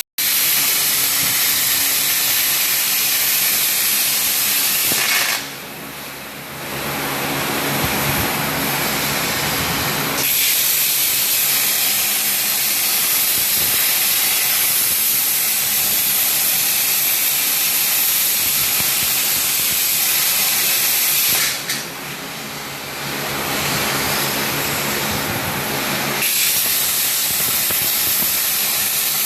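CNC machine running with a loud, steady hiss over a low motor hum. The hiss drops back twice, for about five seconds each time, then returns.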